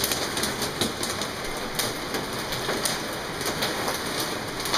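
Hail and heavy rain pelting a skylight overhead, heard from the room below: a loud, steady hiss of rain packed with sharp, irregular ticks of hailstones striking the skylight.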